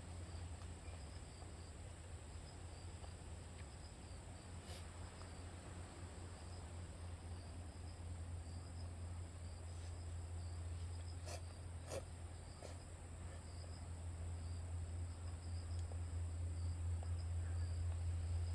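Crickets and other insects trilling steadily in the background, one in a high constant trill and another pulsing a little lower, over a low steady hum, with a few faint clicks.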